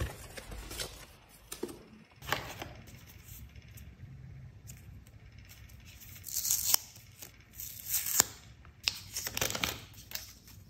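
Clear plastic protective film being peeled off a wireless-earbud charging case, crinkling and tearing in three short spells over the second half. Before that come a few light taps and paper rustles as the instruction booklets are handled.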